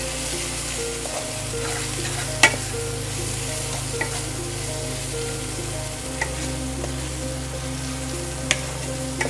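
Spiced mashed-potato dosa filling sizzling in hot oil in a pan as it is stirred and turned with a utensil. A few sharp knocks of the utensil against the pan are heard, the loudest about two and a half seconds in.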